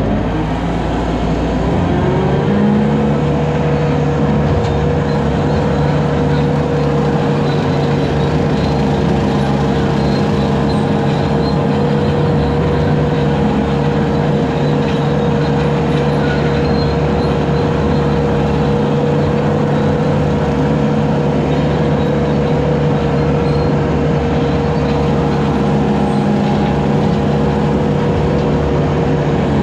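Bobcat 873G skid steer's diesel engine running steadily under hydraulic load, driving a low-flow 72-inch brush cutter. Its pitch rises a little about two seconds in, then holds.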